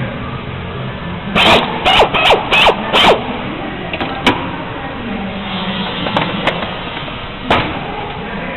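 Five quick rasping strokes on wood in under two seconds, each falling slightly in pitch. A few light ticks follow, then a single sharper knock near the end, over a steady low background hum.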